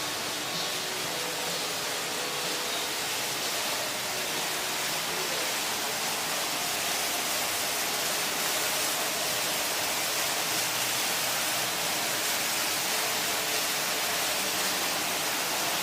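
Steady, even rushing hiss with no distinct events, strongest in the upper range.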